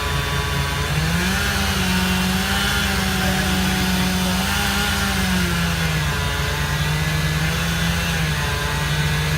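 Two-stroke chainsaw running at high speed. Its pitch rises about a second in, holds, then drops back down around five and a half seconds in, as the engine speeds up and then comes under load again.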